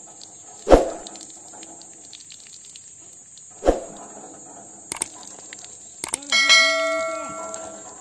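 Subscribe-button sound effect: two sharp clicks about three seconds apart, then a ringing bell-like chime about six seconds in that fades away.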